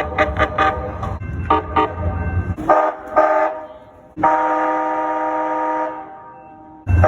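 Calgary CTrain light-rail car sounding its warning bell in quick strokes over the low rumble of the train, then two short horn toots and one long, steady horn blast of nearly two seconds. The bell and rumble start again abruptly near the end.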